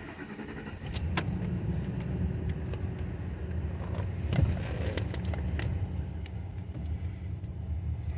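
Pickup truck engine running at a steady idle, coming up about a second in, with keys jangling and scattered light clicks over it.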